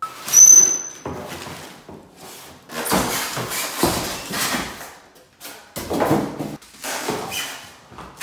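Styrofoam packing and cardboard being pulled and shifted out of a shipping box: a short high squeak near the start, then scraping and rustling with a few dull knocks.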